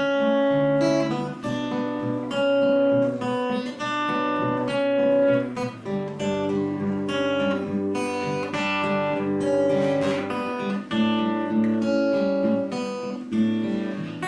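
Acoustic guitar playing an instrumental break in a slow country ballad, a run of picked and strummed notes.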